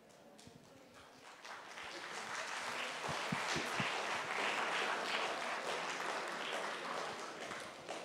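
Audience applauding: the clapping builds over the first couple of seconds, holds, and thins out near the end.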